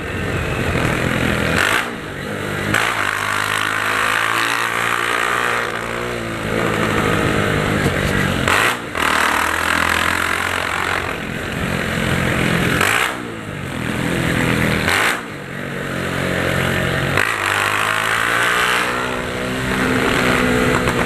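Honda CG 150 Titan's single-cylinder four-stroke engine running through a short straight-through exhaust pipe, loud and frantic. The pitch climbs repeatedly as it accelerates, with several brief dips where the revs drop between gears.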